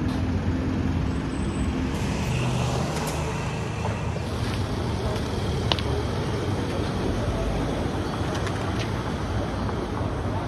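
Street traffic: a steady low rumble of road vehicles and engines, with a few faint ticks.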